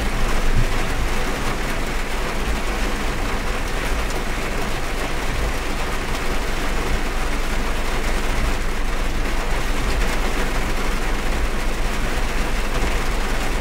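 Steady heavy rain falling on a car's roof and windscreen, heard from inside the cabin, with a low rumble underneath.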